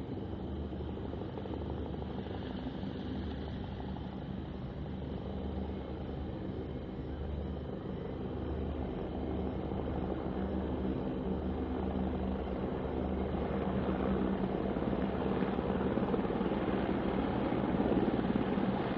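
Military helicopter flying over, its rotor and engine sound growing steadily louder toward the end.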